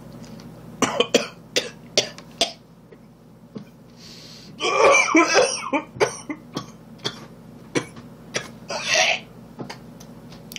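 A man chewing crunchy tortilla chips, with a quick run of sharp crunches in the first couple of seconds, then coughing and clearing his throat about halfway through and again briefly near the end.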